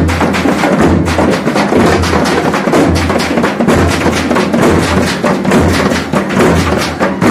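Loud, percussion-heavy procession music: rapid drum strokes over a deep beat that comes a little more than once a second.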